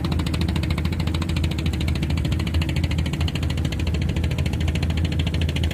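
An engine running steadily, with a fast, even pulse.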